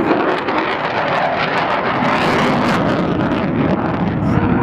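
Lockheed Martin F-35 Lightning II's single Pratt & Whitney F135 engine in afterburner: loud, steady jet noise as the fighter passes and climbs away, the hiss growing briefly brighter about halfway through.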